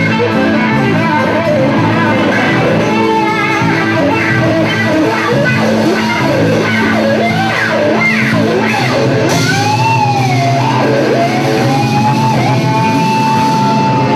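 Live blues band playing a slow blues, led by an electric guitar soloing with string bends over steady bass notes. The guitar holds one long bent note near the end.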